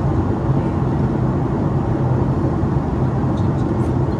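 Steady jet-airliner cabin noise inside a Boeing 737-8200 MAX, an even rumble of airflow and its CFM LEAP-1B engines with a steady low hum.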